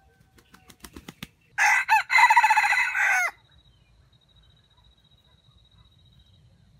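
Red junglefowl rooster crowing once, a loud, short broken crow of a few syllables lasting under two seconds, about a second and a half in. It is preceded by a quick run of faint claps.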